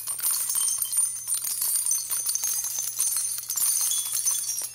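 Steady jingling of small bells, a bright shimmering rattle.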